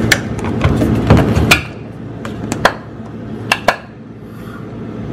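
A handful of sharp plastic clicks and knocks, spaced unevenly, as a refrigerator's water filter cartridge is fumbled back into its slot in the bottom grille. A low rumbling handling noise drops away about a second and a half in.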